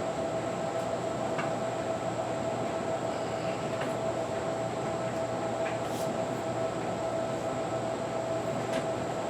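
Steady mechanical hum and whir with a constant mid-pitched whine, with a few faint, sparse clicks.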